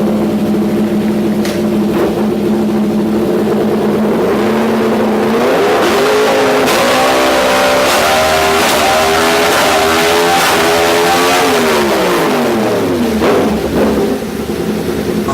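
Yamaha R1 motorcycle's crossplane inline-four engine through its exhaust: a steady note at first, then about five seconds in it revs up through the gears, the pitch climbing in steps at each shift, and near the end the pitch falls away as it slows.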